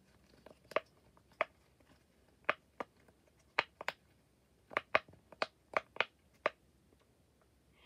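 Silicone push-pop fidget toy, its bubbles pressed through one at a time: about fifteen short, sharp pops at an uneven pace, sometimes two or three in quick succession.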